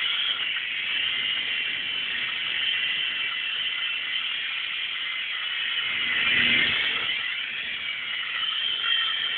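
High whine of a small 3-channel metal RC helicopter's electric motor and rotors spinning, the pitch drifting up and down. It swells louder, with a low rumble, about six and a half seconds in.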